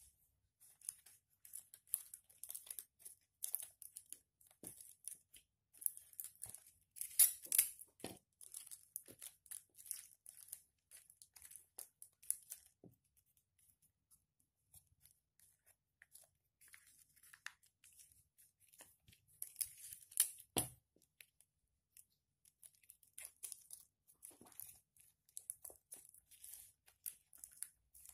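Paper and clear sticky tape being handled: crinkling, rustling and tearing in irregular bursts, with a brief lull partway through and a single knock on the table about two-thirds of the way in.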